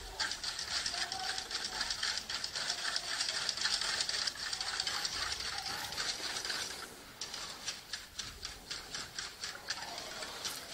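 Wire balloon whisk beating a liquid egg, milk and cream custard base in a metal pot, its wires clicking against the pot in quick, even strokes, with a brief pause about seven seconds in. This is the custard base for crème brûlée being whisked until smooth and uniform.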